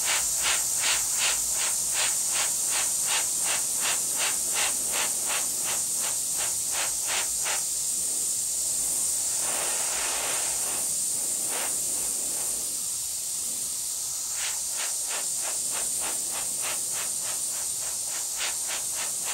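Airbrush spraying chrome paint, a steady high hiss of air. The hiss pulses rapidly, about three times a second, for the first eight seconds and again near the end, and cuts off at the very end.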